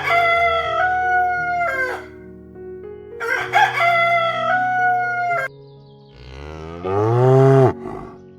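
A rooster crowing twice, each crow a long call that is held and then drops at the end. About six seconds in comes a single cow moo, rising and then falling in pitch.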